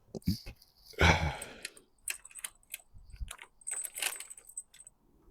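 Small metal tools or parts clinking and jangling in a scatter of short, sharp clicks, with a brief louder rustle about a second in and a short metallic ring near the end.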